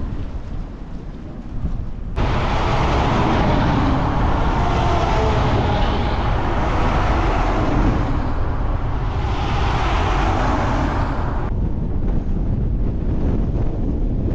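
Strong gale buffeting the microphone with a heavy low rumble. About two seconds in, a louder hissing rush of wind cuts in abruptly, swells twice, and cuts off suddenly a few seconds before the end.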